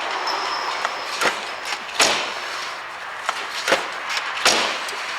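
Land Rover Freelander rear door being worked to test the newly fitted handle: several sharp clicks and knocks of the door mechanism, the loudest about two seconds in and near the end, over a steady hiss.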